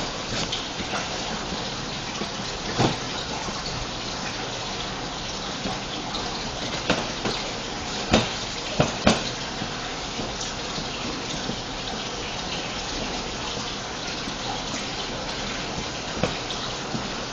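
Steady rushing background noise with a few sharp knocks scattered through it, the clearest about three, seven, eight and nine seconds in, as hands knead and slap a lump of fondant on a steel worktop.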